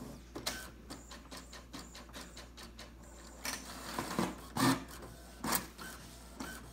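Brother MFC-J875DW inkjet all-in-one printer starting a test print: its mechanism makes a string of light clicks and clacks, with a few louder knocks in the second half.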